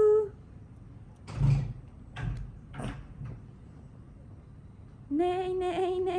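Toys being handled: a few short knocks and thumps between about one and three seconds in. About five seconds in, a voice starts holding one steady note.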